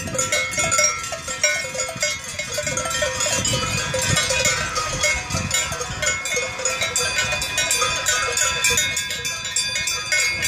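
Many cowbells on a herd of brown cattle clanking at irregular, overlapping moments as the cows walk and graze, making a continuous jangle of ringing tones.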